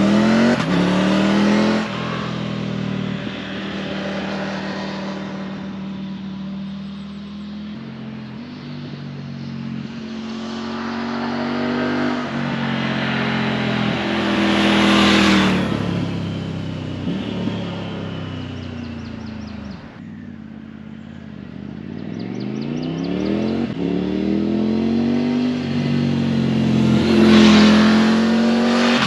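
Triumph Tiger 900's three-cylinder engine breathing through an Akrapovic exhaust, under way and revving up and down through the gears. Its pitch climbs, holds, drops away around twenty seconds in, then rises again under hard acceleration toward the end. The exhaust note is deep with a slight burble.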